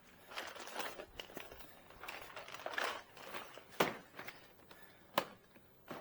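Shuffling and rustling with a few short sharp clicks or knocks, the two loudest about four and five seconds in.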